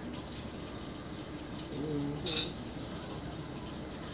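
Kitchen tap running steadily in the background, with a short, loud hiss a little past two seconds in.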